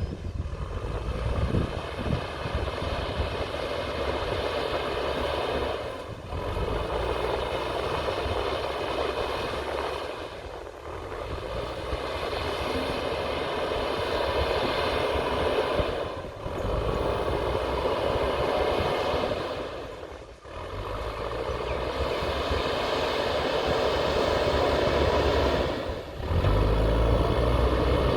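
JCB backhoe loader's diesel engine running steadily under load, its level rising and easing with the work. It cuts out briefly several times, every four to six seconds.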